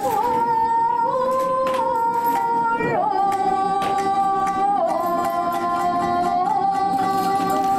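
Kabuki accompaniment: a tokiwazu chanter holding long, drawn-out sung notes that step down and up in pitch, over plucked shamisen strokes.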